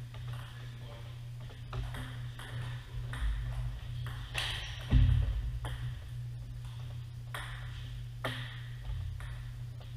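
Scattered, irregular clicks of table tennis balls striking paddles and tables from rallies at nearby tables, over a steady low hum. A louder knock comes about halfway through.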